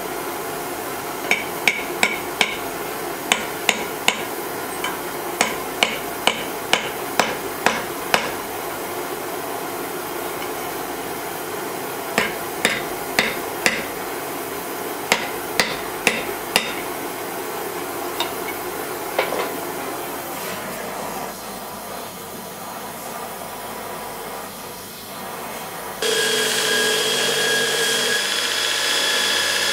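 Hammer striking steel on an anvil in quick groups of blows, two or three a second with pauses between, over a steady hiss. About 26 s in, a belt grinder starts running loudly as steel is ground on the belt.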